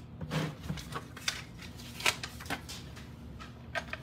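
Scattered light clicks and taps of hard plastic graded-card slabs being handled and set down, about five in all.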